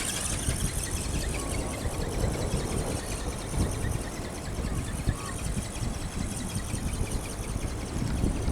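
Strong wind buffeting the microphone in uneven gusts, over the thin, high whine of the NightFury 23iV ornithopter's brushless motor and gear drive, its pitch slowly rising and falling as it flies.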